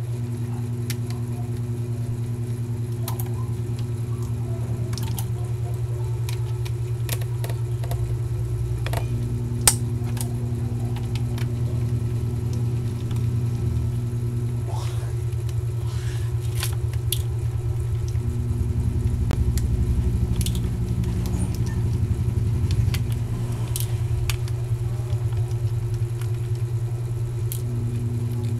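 Steady low electrical hum from workshop background equipment, with a second tone that comes on for a few seconds and cuts out again about every eight seconds. Over it, scattered light clicks and taps of a small screwdriver and laptop parts being handled during disassembly.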